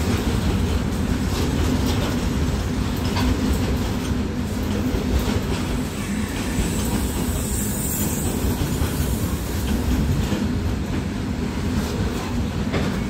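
Covered freight wagons rolling past close by: a steady rumble of steel wheels on the rails, with faint clicks as the wheels cross rail joints.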